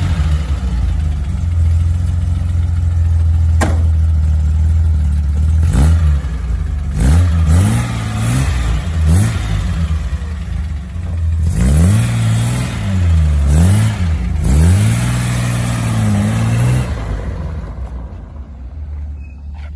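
1972 Datsun 240Z's straight-six engine running warm with the choke now fully off, revved up and down in several blips as it moves off, then fading near the end as the car drives away.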